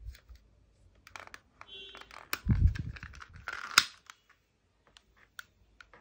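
A glass candle jar set down on a hard tabletop: a dull thump about halfway in and a sharp clink a second later. Then a handful of light separate clicks as a long-nozzle lighter is handled and clicked to light the candle.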